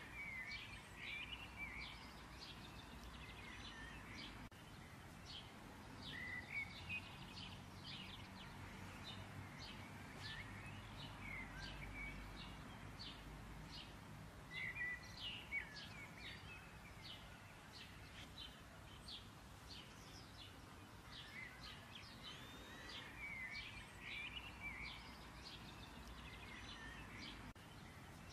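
Sfenj dough frying in a saucepan of hot oil: a faint sizzle with many small irregular crackles and pops.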